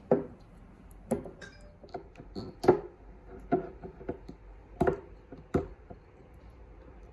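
A scattered series of sharp clicks and knocks from hands working at the capped top of a glass sake bottle to open it.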